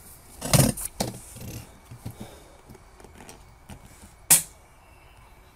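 Daystate Air Wolf MCT precharged air rifle being shot: one loud report about half a second in and a sharper, louder one about four seconds in, with small metallic clicks of cocking and loading between.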